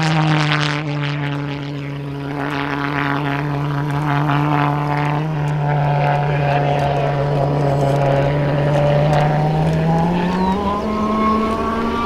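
Radio-controlled model truck driving over dirt: a steady engine-like drone that climbs in pitch about ten and a half seconds in, with scattered clicks over the first few seconds.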